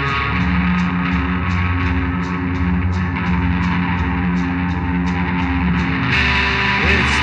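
Live rock band playing: electric guitars over low sustained bass notes, with sharp hits keeping a steady beat of nearly three a second. The band gets louder and brighter about six seconds in.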